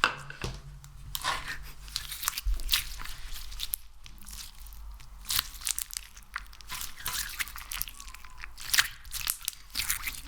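Close-miked hands squeezing and working a crunchy, sticky ASMR material, giving many sharp crackles and sticky clicks at irregular intervals.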